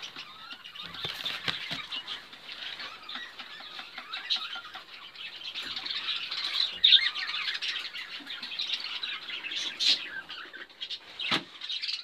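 A flock of caged budgerigars and cockatiels chirping and chattering together, many short overlapping calls, with a single sharp click near the end.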